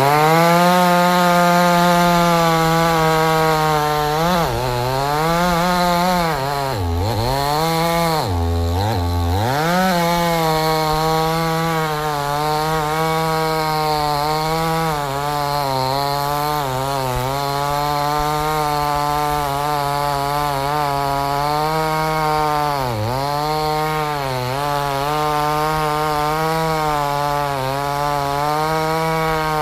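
Chainsaw running at high speed while cutting a tree. Its engine note dips in pitch several times, most deeply a few times between about four and ten seconds in and again around twenty-three seconds, as the chain bites into the wood.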